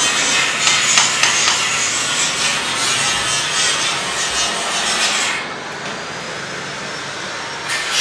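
Rasping, scraping strokes of a hand tool on the aluminium blades of a fan impeller, about two a second. The strokes stop a little past the middle and start again near the end.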